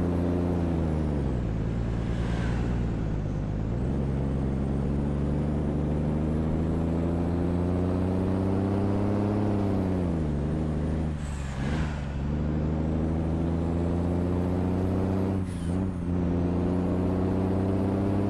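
Scania cab-over truck's engine running with a deep rumble, its note climbing slowly and dropping sharply about one and a half seconds and ten seconds in, as at gear changes. Three short hisses of air come about two, eleven and fifteen seconds in.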